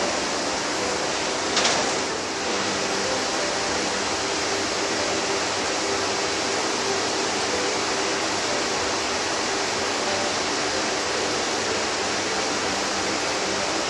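Steady whooshing hum of an LVD Axel laser cutter's cabinet fans and blowers running, with faint steady tones underneath. One brief click comes about a second and a half in.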